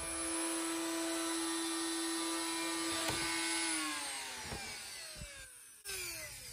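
A power tool's electric motor running steadily at high speed with a constant whine, then switched off about four seconds in and spinning down, its pitch falling steadily.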